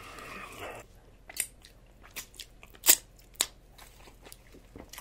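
Crisp cracking of hard corn taco shells, about six sharp crunches spread over a few seconds, the loudest near the middle.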